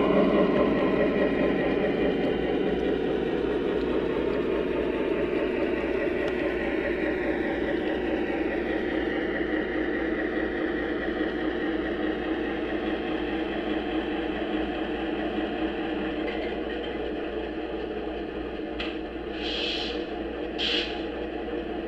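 O gauge model train running on the layout track: a steady rumble of motor and wheels that slowly fades, with two short higher-pitched sounds near the end.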